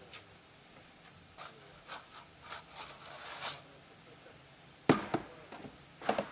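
Steel trowel scraping across fresh gypsum plaster on a block wall in several short strokes, with two sharper knocks near the end.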